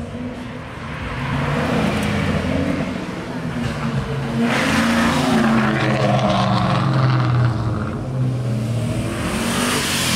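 Cars driving off one after another, their engines revving as they accelerate away. The loudest part, midway, is a Ford Mustang Cobra's V8 pulling off hard. Near the end, a red convertible passes close, its engine note dropping as it goes by.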